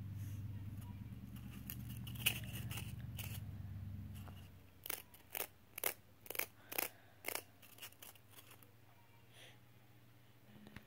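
A low steady hum for about the first four seconds. Then a quick, irregular run of about ten sharp clicks over two or three seconds.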